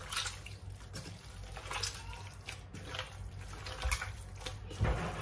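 Raw chicken skin being kneaded and squeezed by hand in vinegar, making irregular wet squishing and splashing sounds, with a couple of low knocks near the end.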